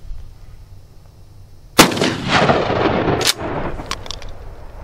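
Mossberg Maverick 88 12-gauge pump shotgun firing a single 3-inch magnum double-aught buckshot shell about two seconds in, the blast echoing for over a second. A sharp clack follows about a second and a half later, then a few lighter clicks.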